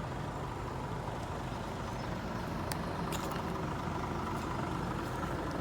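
Diesel lorry engine idling steadily.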